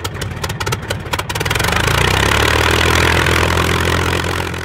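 Engine starting: a fast sputter of firing pulses for about the first second, then it smooths into a loud, steady run that cuts off suddenly at the end.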